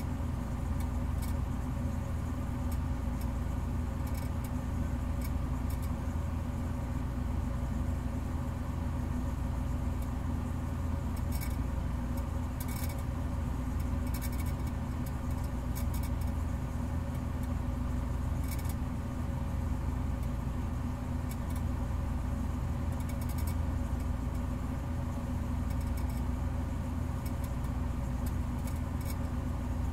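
Steady low mechanical hum with a few steady tones in it, unchanging throughout, with faint scattered clicks and ticks over it.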